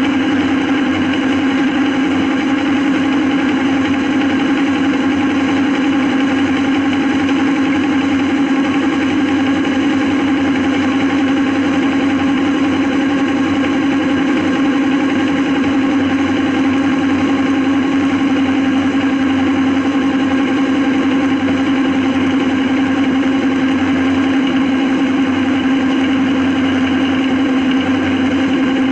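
John Deere 3650's six-cylinder diesel engine running steadily at a constant pitch under heavy load during cultivation of heavy clay soil, with the mounted implement's rumble mixed in.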